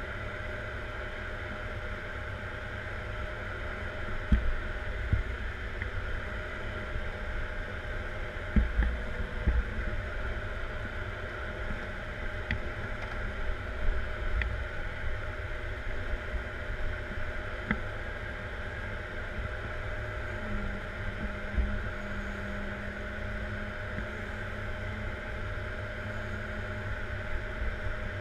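Caterpillar 140M Series 2 motor grader's diesel engine running steadily under load, heard inside the cab, with a few low thumps as the machine works. A low steady hum joins about two-thirds of the way through.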